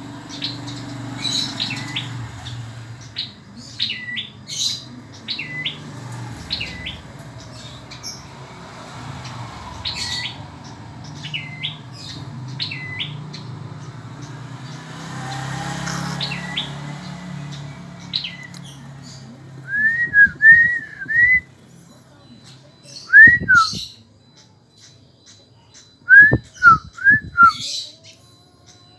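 Caged prenjak pala merah dada abu-abu, a small red-headed, grey-breasted songbird, singing. For most of the time it repeats high, thin whistled notes that dip down and back up, about one a second. Near the end come three loud bursts of short, quick chattering notes.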